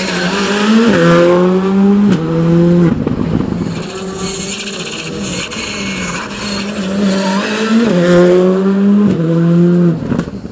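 Two Škoda Fabia rally cars, one after the other, accelerating hard through a chicane. Each engine goes through quick gear changes, heard as sudden steps in pitch. The first car passes early on and the second near the end, and the sound cuts off abruptly at the end.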